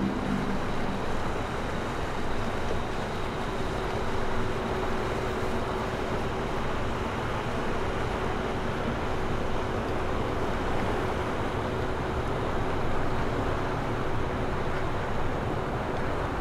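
Ferretti motor yacht cruising past, its engines giving a steady rumble mixed with water wash, with a faint steady hum over it.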